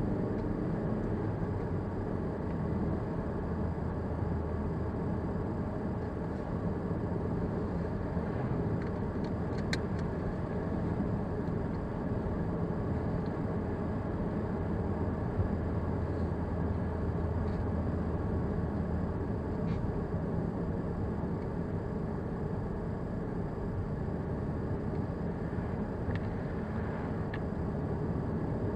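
Steady road and engine noise of a car driving at highway speed, heard from inside the cabin through a dash camera's microphone, with a few faint clicks.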